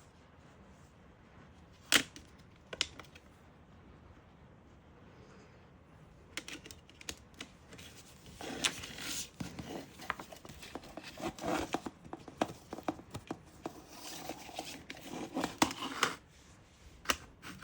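A CD and its packaging being handled: a couple of sharp plastic clicks, then several seconds of dense rustling and clicking, with one more click near the end.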